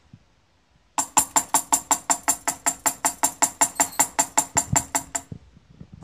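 A rapid, even run of about two dozen sharp ringing strikes, a little over five a second, lasting about four seconds before stopping.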